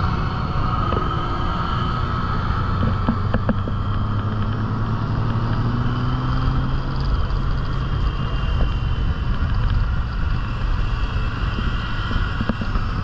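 Steady on-board riding noise from a motorcycle at town speed: a low engine hum mixed with wind and road rush. A slightly higher engine note rises a few seconds in and fades out around the middle.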